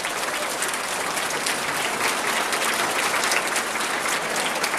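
Large audience of schoolchildren applauding: dense, steady clapping.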